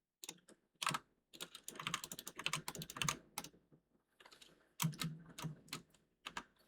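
Computer keyboard keys being pressed in quick, irregular runs of clicks, with a short lull about four seconds in.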